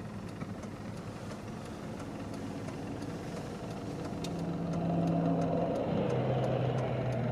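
Car engine and road noise heard from inside the cabin while driving, the engine note rising about four seconds in and dropping to a lower pitch about two seconds later. A faint, evenly spaced ticking runs through the second half.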